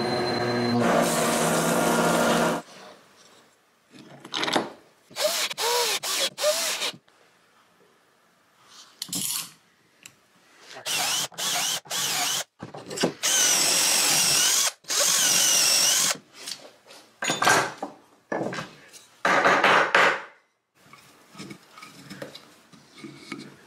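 A milling-machine spindle runs steadily, drilling countersink holes in a metal block, and stops after about two and a half seconds. Then a cordless drill bores holes into wood through a metal doweling jig's guide holes, in several short runs, each speeding up and slowing down.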